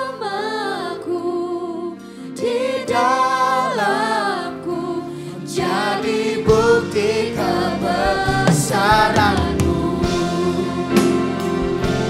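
Worship team of several singers singing a slow gospel song with band accompaniment; deep bass notes come in about halfway through.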